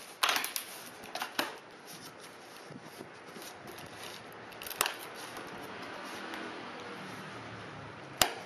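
Packing tape on a cardboard box being slit and torn, with the cardboard flaps scraping and rustling as they are pulled open, in short bursts. A sharp snap comes near the end.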